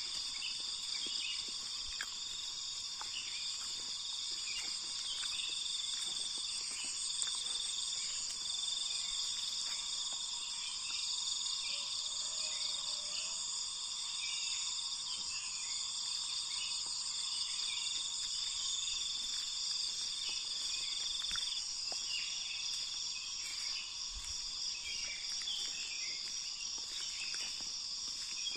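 A steady chorus of insects trilling on several high, even pitches, with many short, quick chirps scattered over it.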